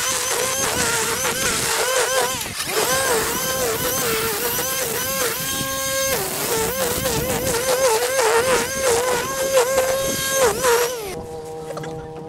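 Ego battery-electric lawn tool's motor whining under load, its pitch dipping and recovering again and again as it bogs in thick grass, over a hiss of cutting. Near the end the cutting hiss stops and the motor hum steadies and fades.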